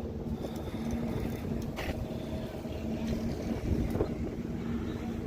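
Steady low rumble of car engines idling, with a steady hum and wind on the microphone; a couple of faint ticks about two and four seconds in.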